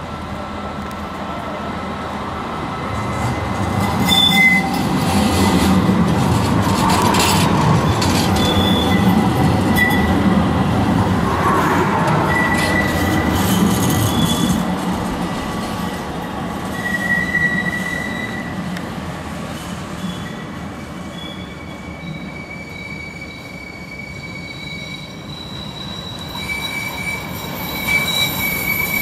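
A street tram rolls past close by, a swelling rumble with its steel wheels squealing on the rails in short high tones. Near the end a second tram's wheels squeal steadily as it rounds a curve in the track.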